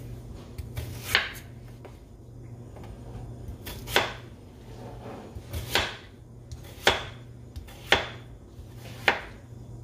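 Kitchen knife dicing chayote squash on a wooden cutting board: about six separate sharp knocks of the blade striking the board, roughly one a second, over a low steady hum.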